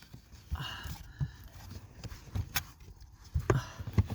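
Handling noises of a new cabin pollen filter being picked up and manoeuvred: scattered rustling with light knocks and clicks, one sharp click about halfway through and a few knocks near the end.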